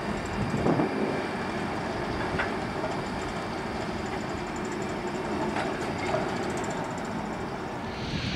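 Class 09 diesel shunter's English Electric six-cylinder engine running steadily as it slowly draws coupled diesel locomotives along a yard siding, with a few faint clicks and short squeaks.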